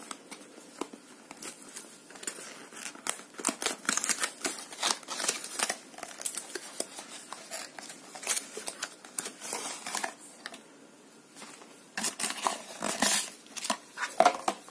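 Small cardboard box being opened and unpacked by hand: flaps and inner tray scraping, clicking and rustling in an irregular run of short rasps, with a short lull about ten seconds in.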